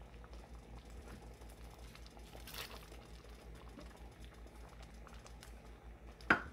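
Faint crackling and light ticking of a pot of sambar simmering. There is a short louder rustle about two and a half seconds in, when the fried tempering is tipped into the pot, and a sharp knock just before the end.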